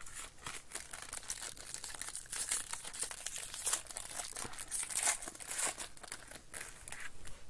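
Silver foil wrapper of a Topps Museum Collection baseball card pack being torn open and crinkled by hand, a dense, irregular crinkling that is loudest in the middle.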